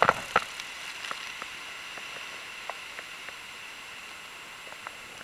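Steady hiss of heavy wind-driven rain, with a few scattered ticks through it and a short cluster of sharp knocks right at the start.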